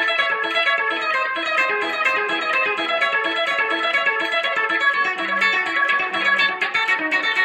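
Background music: a quick, rhythmic picked guitar figure played steadily.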